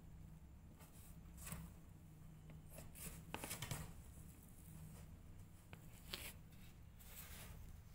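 Faint soft rustling and rubbing of kittens shifting against a cloth blanket in a cardboard box, a few brief brushing sounds over a low room hum, the loudest a little after three seconds in.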